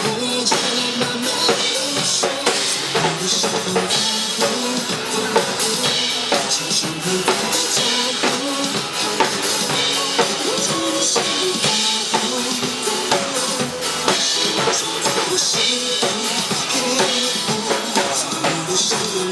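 Instrumental passage of a pop song with a steady drum-kit beat of bass drum and snare under the melody instruments, with no singing.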